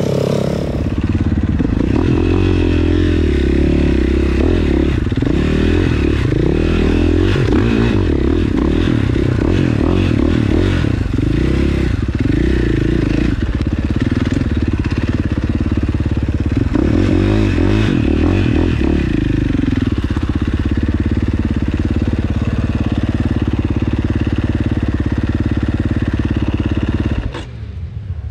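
ATV engine revving, the throttle opened and eased repeatedly so the pitch rises and falls, then holding a steadier note before it drops away suddenly near the end.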